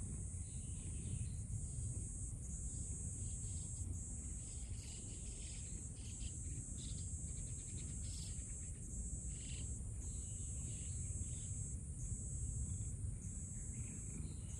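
Insects chirring steadily in a high, thin band that breaks off briefly every second or two, over a constant low rumble of background noise, with scattered short rustling sounds.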